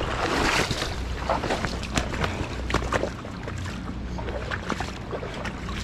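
Wind rumbling on the microphone with a short rush of splashing-like noise in the first second, then scattered clicks and knocks of gear and feet on the shoreline rocks.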